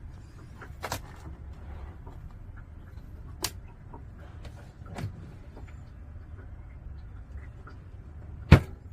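Four sharp clicks and knocks, the loudest near the end, over a steady low rumble.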